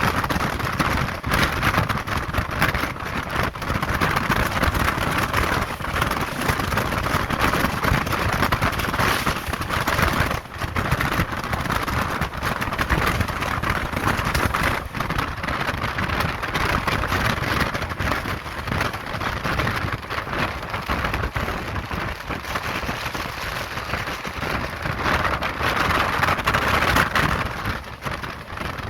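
Indian Railways express train running at speed: a steady rush of wheels on rail and wind, with frequent short clicks and knocks from the track.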